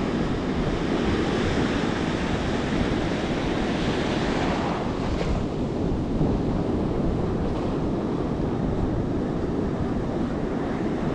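Surf waves washing and breaking around a wading angler, with wind buffeting the microphone. The rush of a wave swells a little about four seconds in and eases off just after five seconds.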